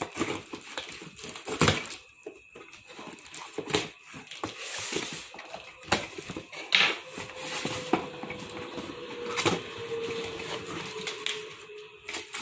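Knife slitting the packing tape on a cardboard box, then the cardboard flaps being torn open and handled: irregular scraping and rustling with a few sharp cracks.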